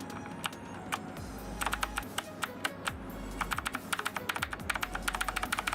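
Keys on a clicky Razer BlackWidow Chroma mechanical keyboard being pressed in quick runs of sharp clicks, starting about one and a half seconds in.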